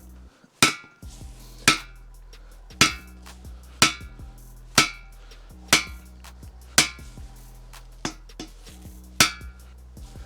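Hammer blows on a cam bearing installer tool, driving a replacement cam bearing into an LS V8 engine block: about nine sharp, ringing metal strikes roughly a second apart.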